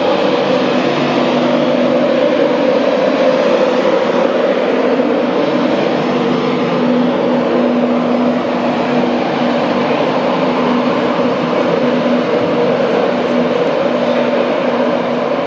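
Steady hum and whine of standing electric trains' cooling fans and onboard equipment, with a low steady tone that fades out for a few seconds and then returns.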